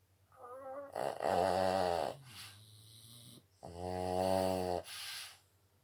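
Boston Terrier snoring, a big snore: two long snores with a pause between, each ending in a shorter breathy puff.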